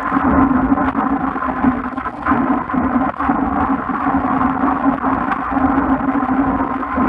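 Steady road and wind noise from an action camera mounted on a road bike riding in a bunch on wet tarmac, with a few faint clicks.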